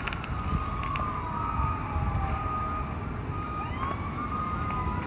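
Emergency vehicle sirens wailing, their pitch sliding slowly down and back up in overlapping glides, over a steady low rumble.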